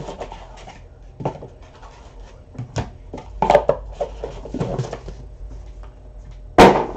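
Hands handling a trading-card pack and cards on a tabletop: a run of scraping, rustling and tapping strokes, then one sharp knock near the end.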